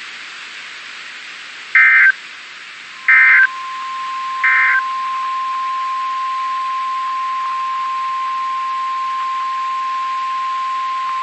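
Emergency Alert System SAME header: three short, harsh bursts of digital data tones a little over a second apart. It is followed by the steady single-pitch NOAA Weather Radio warning alarm tone, held for about seven seconds, which signals that a new weather warning is about to be read.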